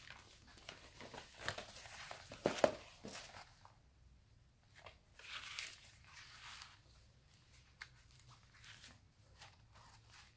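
Paper pages of a handmade booklet rustling and crinkling as they are handled, turned and folded closed, with a few sharper rustles in the first three seconds.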